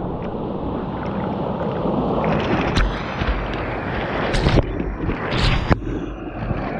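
Whitewater rushing around a kayak running a rapid, with several sharp splashes against the boat from about two and a half seconds in.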